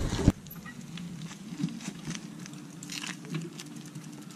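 Mountain bike rolling on pavement, with a low tyre hum and scattered light clicks and rattles from the bike.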